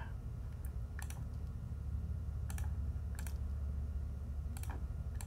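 Computer mouse and keyboard clicks: several short clicks, mostly in quick pairs, spaced out with pauses, over a steady low hum.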